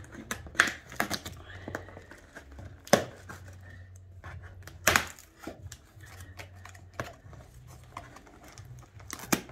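Scissors cutting through packing tape and cardboard on a shipping box: irregular sharp snips and crinkles, the loudest about three and five seconds in.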